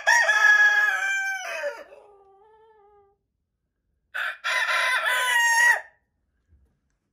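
Rooster crowing twice: a long crow that trails off over its last second, then a second, shorter crow about four seconds in.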